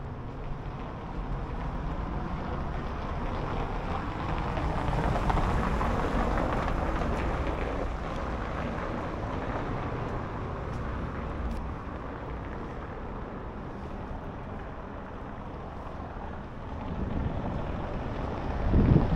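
Outdoor street ambience: wind rumbling on the microphone, with the noise of a passing vehicle swelling and fading about four to eight seconds in.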